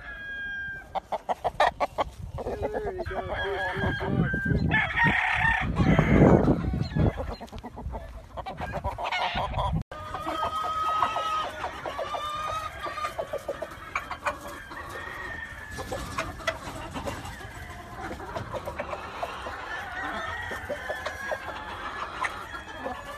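Roosters crowing and chickens clucking. A loud crow about five to seven seconds in is the loudest sound, and after an abrupt break near ten seconds several birds crow and cluck over each other.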